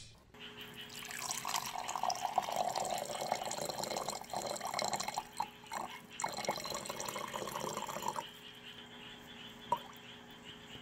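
Water poured in a steady stream into a glass wine goblet, splashing as it fills, until it stops about eight seconds in. After that a thin stream of cherry syrup runs in more quietly, with one short tap near the end.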